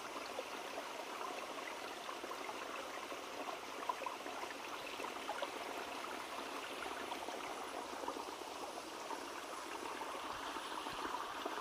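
Forest stream running steadily, an even rush of flowing water.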